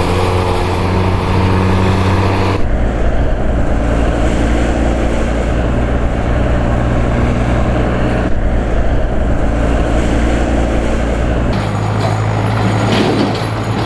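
Road traffic with heavy diesel trucks and buses running close by: a loud, steady low engine drone that changes abruptly twice, about two and a half seconds in and near the end.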